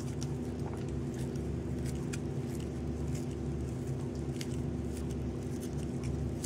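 A steady low hum, with faint scattered clicks as a knife slices surimi sticks into rounds held in the hand.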